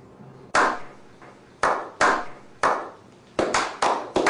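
Hand clapping by a small group: three single slow claps about a second apart, each with an echoing tail, then speeding up into quicker clapping near the end.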